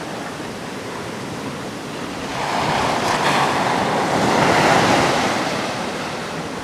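Sea waves breaking on a rocky coast: a steady wash of surf that swells as a wave comes in from about two seconds in, peaks, and then falls back.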